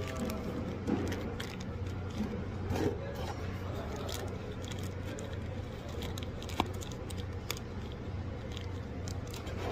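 Hands wrapping a small plastic oil-sample bottle in an absorbent pig mat and fitting it into a black plastic container: rustling, scraping and scattered light clicks over a steady low hum.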